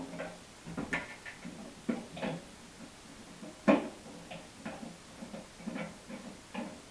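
Irregular light clicks and knocks from a screwdriver and hands working at the screws on the underside of a microwave's metal casing, with one louder knock near the middle.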